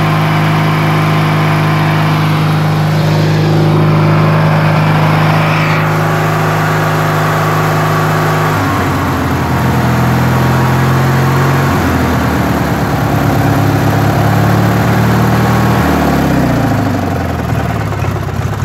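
1993 Briggs & Stratton opposed-twin lawn tractor engine running smoothly just after starting, a steady purr. Its speed shifts at about eight and twelve seconds in, and falls off near the end.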